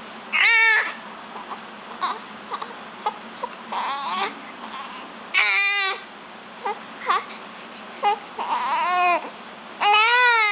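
Newborn baby crying in short wails, with small whimpers and gasps between them. The cries grow longer toward the end.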